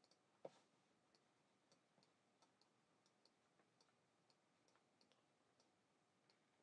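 Near silence: room tone with faint, irregular ticking clicks, a few a second, and one soft knock about half a second in.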